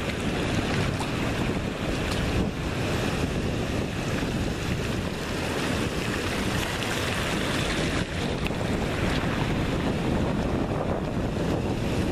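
Wind buffeting the microphone, with a low rumble over the steady wash of surf.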